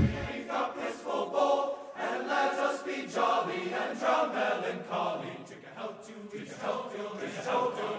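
Background music: a choir singing slow, sustained phrases.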